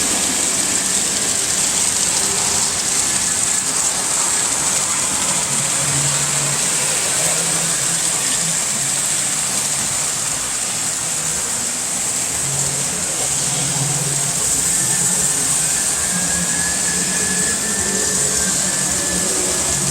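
Model train running on its track: a steady rolling, hissing noise with a faint motor hum that comes and goes.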